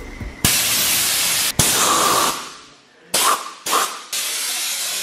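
Compressed-air blow gun blasting air in bursts to blow leftover sandblasting grit off motorcycle wheel rims: a long blast of about two seconds with a brief break in it, two short blasts, then a steady blast from about four seconds in.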